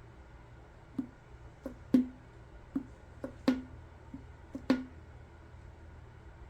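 About nine light taps or knocks on a hard object, each with a short ringing tone. They fall mostly in pairs, a small tap followed by a louder one, the loudest three about a second and a quarter apart.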